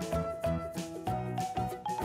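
Background music: an instrumental tune of short notes stepping from pitch to pitch.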